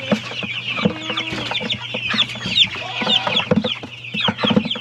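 A bucketful of young Cornish cross broiler chicks peeping nonstop: a dense chorus of short, high, falling chirps, with scattered knocks as they shift about in the plastic bucket.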